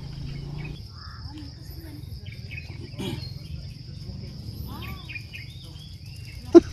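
Insects droning steadily on one high note, with scattered short bird chirps. Just before the end come a couple of sharp, loud knocks.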